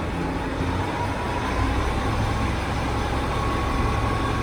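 Dump truck's engine running steadily while its hydraulic hoist raises the tipping tray, the low engine note growing stronger about one and a half seconds in, with a faint steady whine above it.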